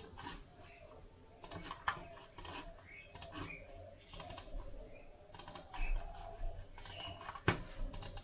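Irregular clicking from a computer mouse and keyboard, a few clicks a second, with a sharper click near the end.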